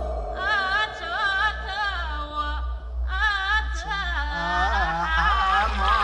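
Background music: a high, wavering sung melody in short phrases over a steady low accompaniment.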